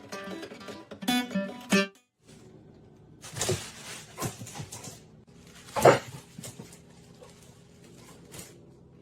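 Acoustic guitar strumming that cuts off about two seconds in, followed by a dog's two short barks, the second and louder one about six seconds in.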